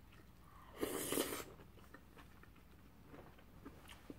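A short noisy slurp of pasta about a second in, lasting under a second, followed by faint small clicks of eating.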